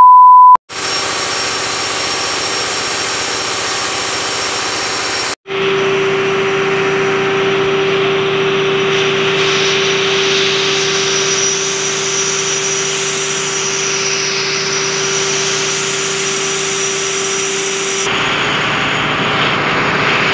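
Ship's engine-room machinery running: a steady, loud diesel drone with a constant hum and a faint high whine, broken by a brief cut about five seconds in. A loud single-pitch electronic beep opens it.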